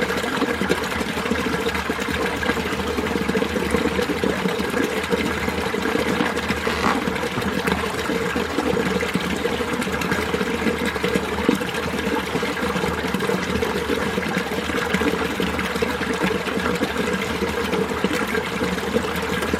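Mountain stream flowing steadily over rocks: an even, continuous sound of running water.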